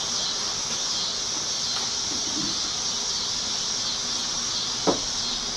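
Steady high-pitched hiss of outdoor background noise, with one sharp click near the end.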